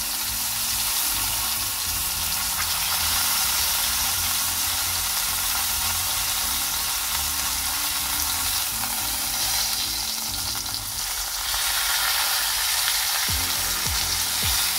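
Sirloin steak sizzling steadily in hot smoked lard in a frying pan, held on its edge with tongs so the fat cap renders.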